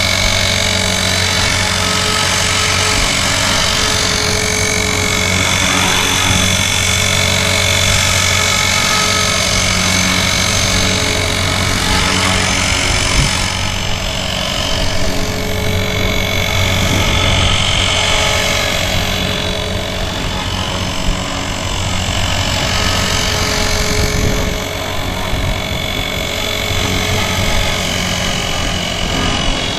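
Blade Fusion 360 electric RC helicopter flying, its motor, drivetrain and rotor running steadily with a loud gear noise from sand in the spur gear.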